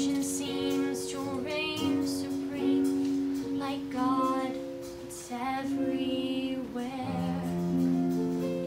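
A woman singing a solo song with long held notes over soft instrumental accompaniment.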